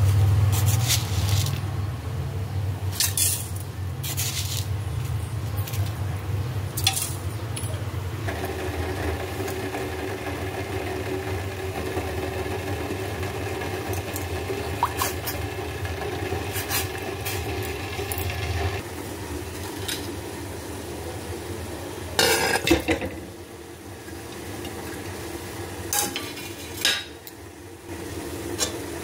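A spoon stirring spices frying in oil in a stainless steel pot, with scraping and clinks against the metal and a cluster of louder knocks about two-thirds of the way through. A steady hum runs underneath for the first two-thirds.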